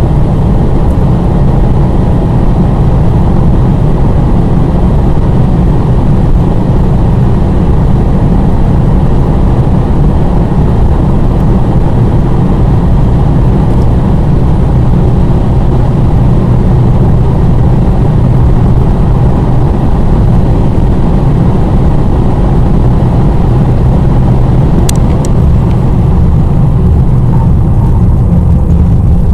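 Inside the cabin of a Mercedes CLA 220 CDI at over 200 km/h: a steady loud roar of wind and road noise over the drone of its 2.1-litre four-cylinder turbodiesel.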